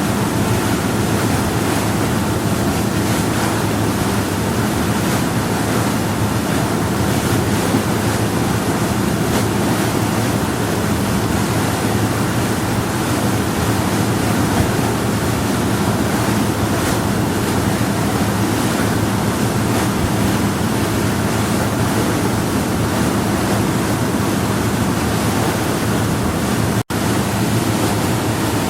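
Power yacht under way at steady speed on calm water: a constant rush of water along the hull and wind, over a low steady engine hum. The sound cuts out for a split second near the end.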